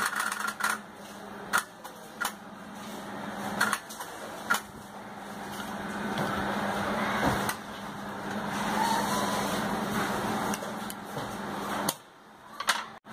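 Steady workshop background noise with a low hum, broken by several sharp clicks and taps from handling a circuit board and a screwdriver. The sound drops away briefly near the end.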